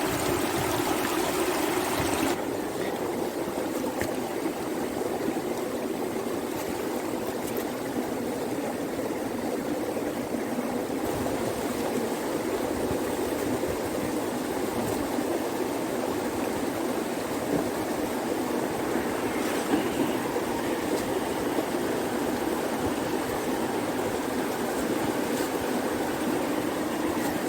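Swollen river in flood, water rushing steadily; its upper hiss eases a little about two seconds in.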